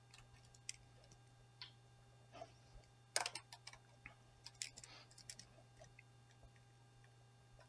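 Faint ticks and scratches of a pen writing on paper, strongest about three seconds in, over a low steady electrical hum.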